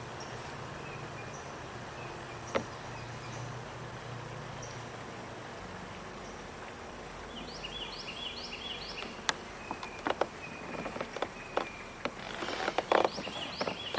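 Wild birds chirping in repeated short falling notes over a steady high insect buzz, with a quick run of chirps about halfway through. Scattered sharp clicks and knocks join in over the last few seconds.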